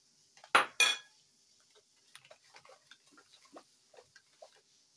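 A metal spoon clinks twice sharply against a stainless steel mixing bowl, followed by a run of faint small taps and clicks as the yogurt mixture is stirred.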